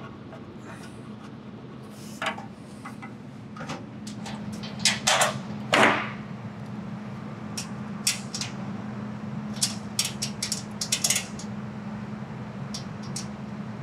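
Scattered metal clinks and knocks from a radiator and its mounting hardware being handled and fitted into a welder's sheet-metal radiator shroud, with a few louder knocks about five to six seconds in and a run of clinks later on. A steady low hum runs underneath.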